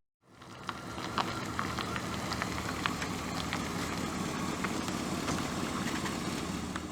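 Car engine idling steadily, with faint scattered ticks over it.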